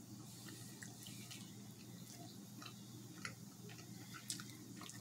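A person chewing a mouthful of hot dog and hamburger sandwich, with soft wet mouth clicks and smacks at irregular moments over a steady low hum.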